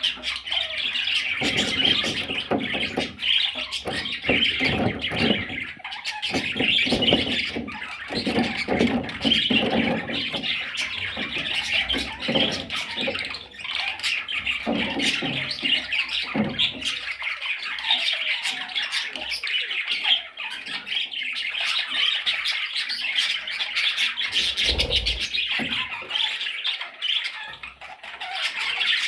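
A group of budgerigars chattering and squawking continuously, with lower-pitched sounds mixed in through the first half.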